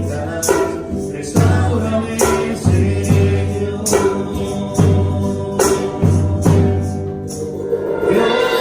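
Latin Christian praise music (alabanza) played by a band: a steady beat with a percussive hit a little more than once a second over a sustained bass line, with singing.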